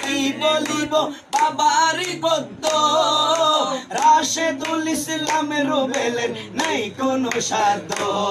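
Unaccompanied male voice singing a Bengali Sufi manqabat (devotional praise song), with other men's voices joining in and hand claps keeping time.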